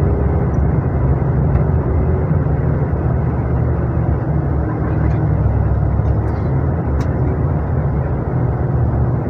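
Long-distance coach's engine and road noise heard from inside the passenger cabin: a steady low rumble with a faint hum.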